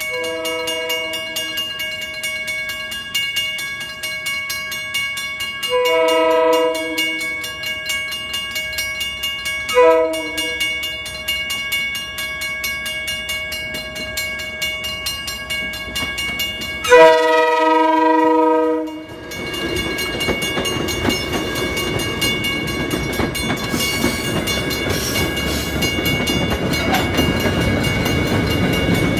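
MBTA commuter train horn sounding four blasts for a grade crossing, the third one short and the last one long, over the steady ringing of the crossing bell. After the last blast the train reaches the crossing, and the rumble of its wheels and coaches rises as the cars pass.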